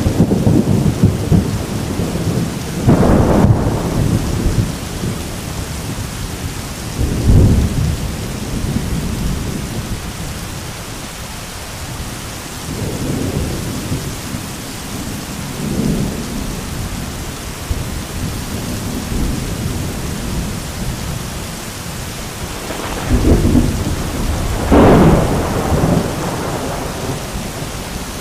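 Heavy rain pouring steadily, with thunder rumbling through it several times; the loudest rolls come about three seconds in and again near the end.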